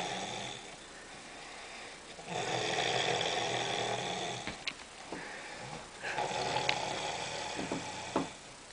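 A man snoring: two long snores of about two seconds each, with quieter breaths between them.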